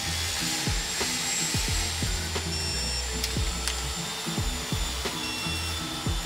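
Background music with a bass-heavy beat. Over it, a digital torque wrench is worked on the engine case bolts, with light clicks and two short high beeps from the wrench as a bolt reaches torque.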